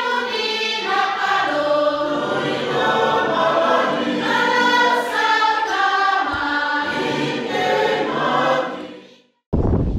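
Intro music of a choir singing sustained chords, which fades out about nine seconds in.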